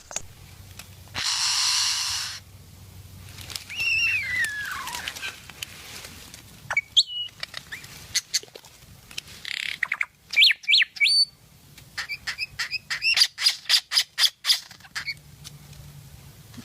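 Bird calls: a harsh squawk about a second in, a long falling whistle a few seconds later, then short whistled notes and a fast run of sharp, clipped notes near the end.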